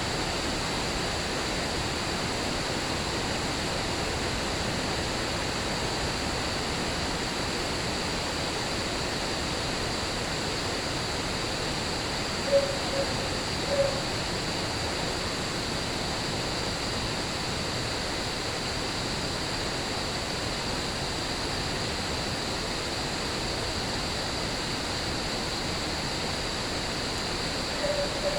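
Steady rain hiss with a constant high-pitched cricket chorus over it. A few short mid-pitched calls stand out about halfway through and again near the end.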